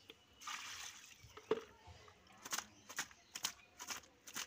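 Water sloshing and splashing as cut fish pieces are washed in a woven bamboo basket dipped and shaken in water. A short rush of water about half a second in, then a run of short splashes about two a second.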